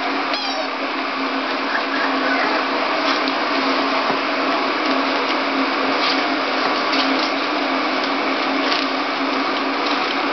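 Steady mechanical hum and hiss with a low drone underneath, and a faint high squeak about half a second in.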